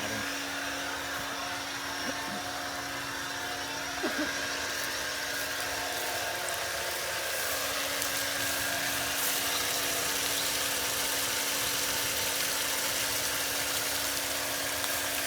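A small engine at a deep-well drilling site running steadily, with a constant whine over a hiss that grows slightly louder about halfway through.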